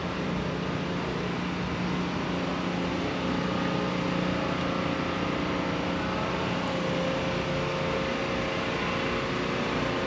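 A motor running steadily at an even pitch, with a constant hiss of city traffic underneath.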